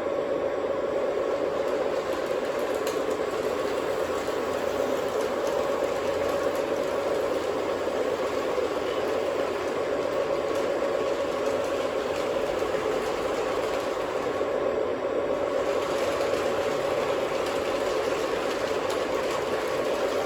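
O gauge electric model trains running on the track: a steady hum of motors and wheels that holds even throughout, with faint ticks now and then.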